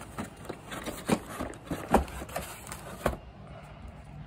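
Hands rummaging in a router's packaging: the plastic bag around the router and the packaging tray are rustled and knocked, giving an irregular run of crackles and knocks, the loudest about two seconds in and another about three seconds in.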